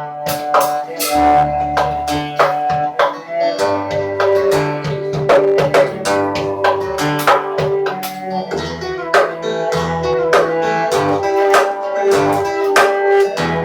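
Acoustic guitar and cello playing an instrumental tune: quick picked and strummed guitar notes over long held cello notes.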